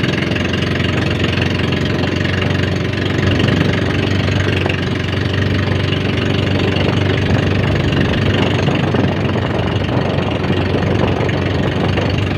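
Motorboat engine running steadily at an even pitch, heard from on board the boat.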